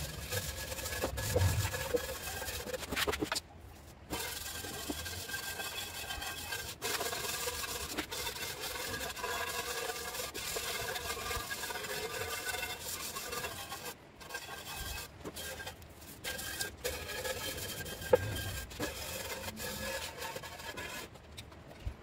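Scraper and stiff hand brush scrubbing loosened paint off a steel skid plate: a continuous rasping scrape, with short pauses around four seconds in and past the middle.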